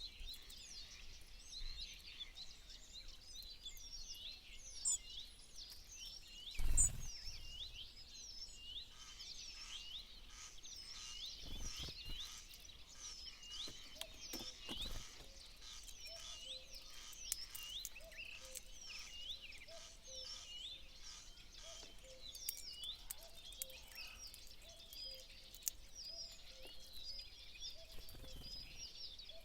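Small songbirds chirping and twittering busily, many short high chirps overlapping, with a fainter low call repeating steadily in the background from about a third of the way in. A single thump about a quarter of the way in is the loudest sound.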